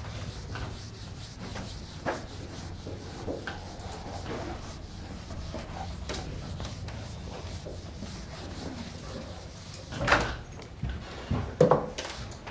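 Whiteboard being wiped clean with a duster: a run of repeated rubbing strokes across the board, with two louder thumps near the end.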